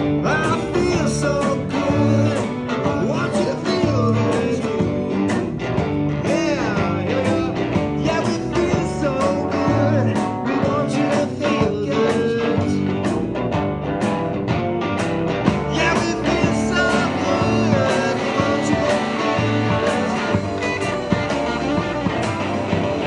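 Live garage R&B band playing an instrumental passage: electric guitars, keyboard and drums over a steady beat.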